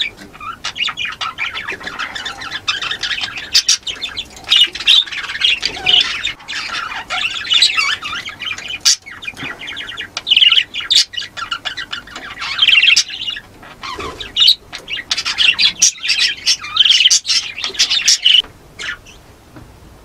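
Budgerigars chattering and squawking, a busy, continuous mix of quick chirps, warbles and clicks. The chatter dies down near the end.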